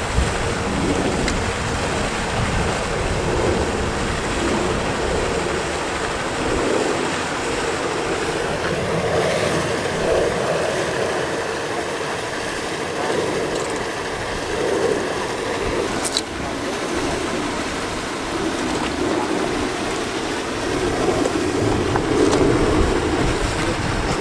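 Strong wind blowing across the microphone with a steady, fluctuating low rumble, over the rushing wash of sea water at the shore.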